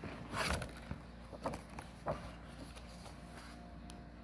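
Cardboard and paper packaging of a coin set rustling as its card cover is lifted off, followed by a few light knocks and clicks as the coin folder is handled.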